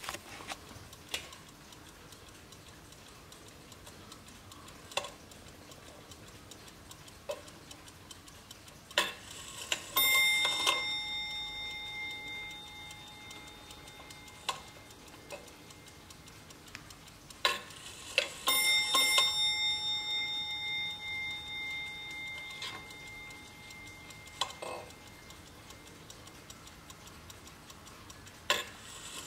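German Observer ship's clock striking its ship's-bell chime as its minute hand is turned by hand: a ringing bell stroke about ten seconds in and another group of strokes about eighteen seconds in, each dying away slowly. Sharp clicks from the movement are heard between the strikes.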